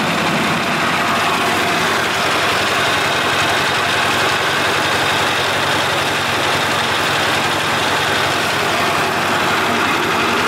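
Motor-driven rice-hulling machine running steadily, milling paddy rice: a constant, even mechanical din.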